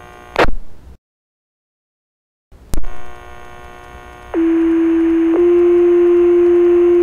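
Two-tone sequential fire-department paging tones over a radio channel: a squelch click, a short silent gap, another click and hiss, then a low steady tone for about a second that steps straight into a slightly higher, louder tone held for several seconds. It is the page that sets off the volunteer firefighters' pagers for the call.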